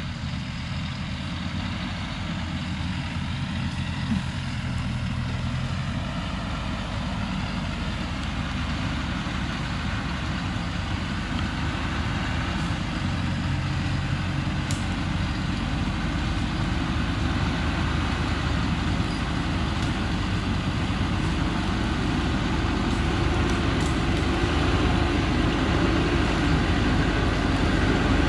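Thaco Foland diesel truck loaded with acacia logs creeping down a steep forest track, its engine running steadily and growing louder as it comes closer.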